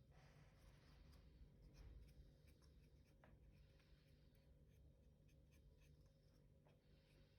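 Very faint scratching strokes, about three slow passes, against a quiet room hum.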